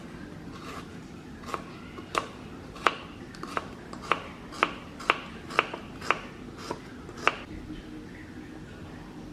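Kitchen knife chopping on a cutting board: about a dozen sharp knocks, roughly two a second, that stop a couple of seconds before the end.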